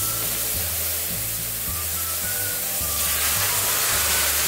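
Cooked bottle gourd curry hitting hot mustard oil with a cumin and dried-chilli tempering in a kadai: a loud hiss of sizzling and steam that starts suddenly. Background music with a bass line plays underneath.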